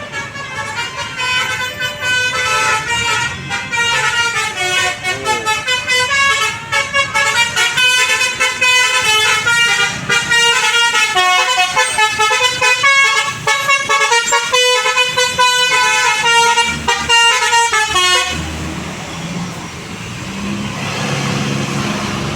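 A bus's telolet basuri musical horn playing a quick melody of stepped notes, then cutting off suddenly near the end, leaving a low traffic rumble.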